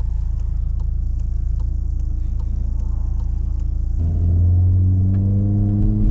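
Volkswagen Golf GTI Mk7's turbocharged 2.0-litre four-cylinder, heard from inside the cabin while driving: a steady low rumble, then about four seconds in the engine comes on throttle and gets louder, its note climbing slowly.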